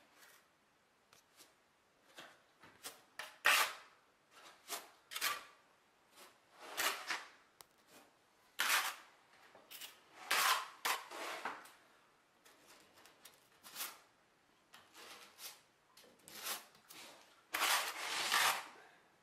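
Steel trowels scraping thinset mortar: a notched trowel spreading it along the edge of a shower board and a margin trowel loading it, in a string of irregular short scrapes.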